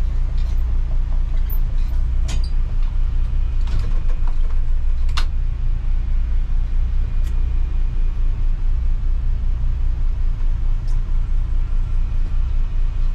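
Boat engine idling: a steady low rumble with a regular pulse a few times a second, and a few light clicks in the first half.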